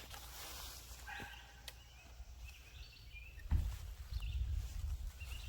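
Quiet outdoor ambience with a few faint high chirps, and a low wind rumble on the microphone starting a little past halfway through.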